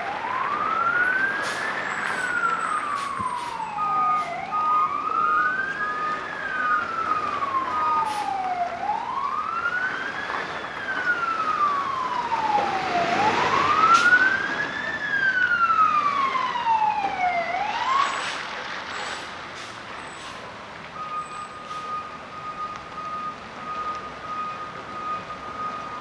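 Emergency vehicle siren in a slow wail, rising and falling about once every four to five seconds, cutting off about 18 seconds in. A faint steady high tone follows, and a few sharp pops are heard.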